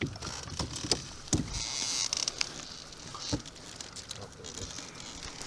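Scattered knocks and rustles in the bottom of a canoe, with a short hiss about two seconds in.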